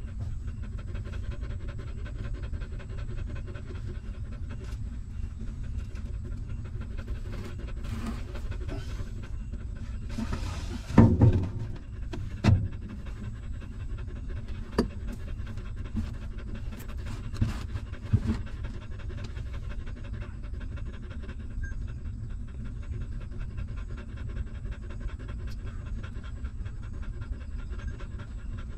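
Mother dog panting steadily and rhythmically while her newborn puppies nurse against her. A short louder rustle with a couple of knocks comes about ten to twelve seconds in, and a few single clicks follow.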